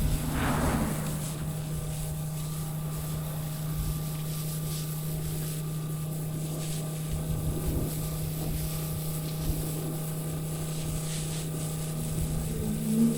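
Pressure washer engine running steadily at a constant speed, a continuous drone with a hiss over it.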